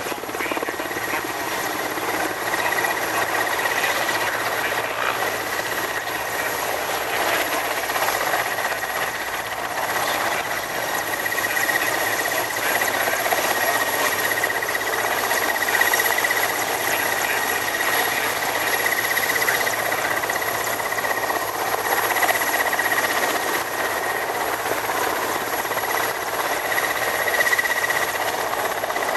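Mil Mi-17 helicopter hovering, its twin turboshaft engines and main rotor running steadily: a continuous rotor chop under a steady high whine.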